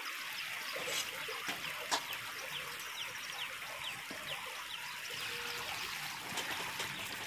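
Oil sizzling and crackling on a cauliflower paratha on a hot iron tawa as a steel spoon spreads refined oil over it, with a couple of light clicks of the spoon.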